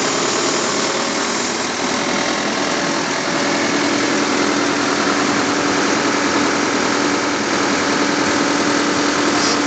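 Backhoe loader's diesel engine running steadily at a constant speed.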